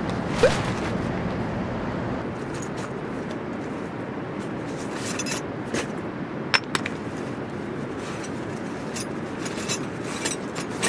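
Camping gear being handled over a steady outdoor background noise: a sharp click with a short rising squeak about half a second in, then scattered light clicks and rustles.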